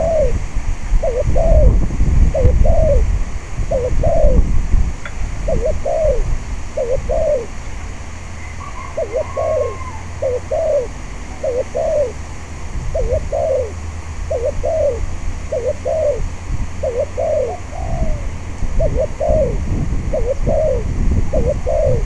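Spotted dove cooing over and over, a steady run of short coos about every three quarters of a second. Wind rumbles on the microphone underneath, strongest at the start and again near the end.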